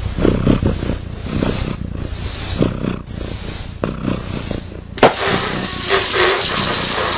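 Balloon being inflated, with a hiss of air about once a second, then a loud bang about five seconds in as the balloon bursts, followed by a noisy hiss.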